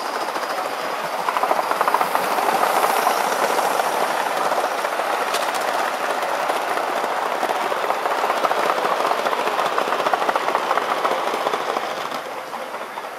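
Model train rolling past on metal track: a fast, dense clatter of wheels over the rails. It swells about a second and a half in and fades near the end as the long train of wagons goes by.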